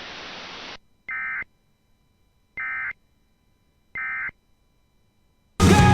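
Emergency Alert System end-of-message: a steady radio hiss cuts off, then three short bursts of warbling SAME digital data tones sound about a second and a half apart, marking the end of the alert. Loud music starts just before the end.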